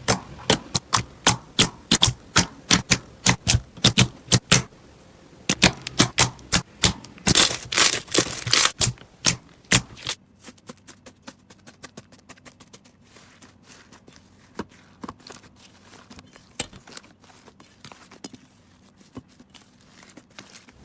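Slime being squeezed and pressed by hand, giving rapid, irregular clicking and popping as trapped air bursts. It is loud for about the first ten seconds, then changes abruptly to a quieter, finer crackle.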